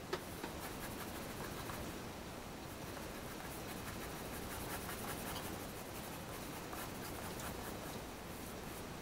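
Pencil scratching on paper in quick, repeated short strokes, as in hatching. There is a single sharp tap just after the start.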